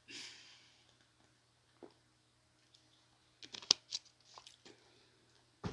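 A soft breath, then scattered faint clicks and smacks, with a short cluster of them a little past the middle: mouth and eating sounds of someone finishing a meal close to the microphone.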